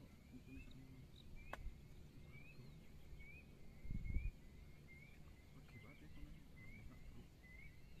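Repeated short, high chirps from a small calling animal, about one every three-quarters of a second, over a low outdoor rumble. A sharp click comes about a second and a half in, and a dull thump about four seconds in.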